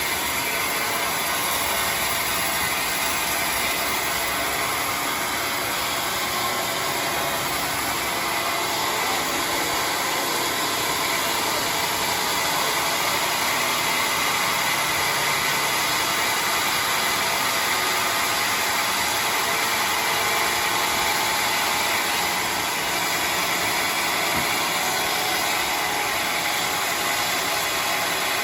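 Sawmill saw machinery running steadily, a continuous even mechanical noise with no breaks or changes in level.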